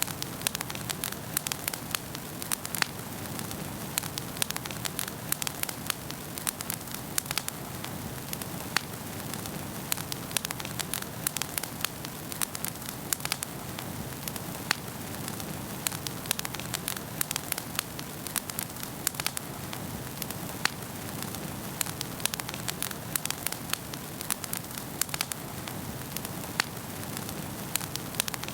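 Wood fire burning in a fireplace, crackling: a steady hiss of flames with frequent sharp, irregular pops and snaps.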